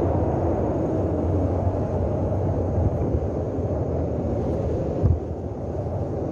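Steady rush of airflow buffeting the microphone during a paraglider flight, with a brief thump about five seconds in.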